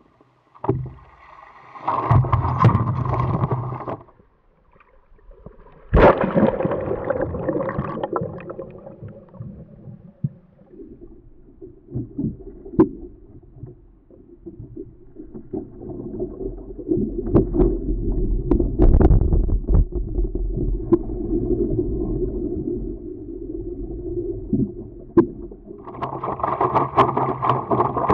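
Water lapping and gurgling against a paddleboard's hull as it is paddled, rising and falling unevenly in level.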